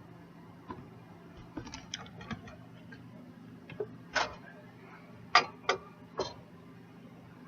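Kitchenware being handled: a scattered run of light clicks and taps, a few sharper knocks in the second half.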